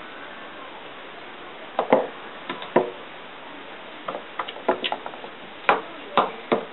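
Small ball knocking and bouncing on wooden stair treads as a cat bats at it: a run of sharp, irregular wooden knocks starting about two seconds in, coming in quick clusters.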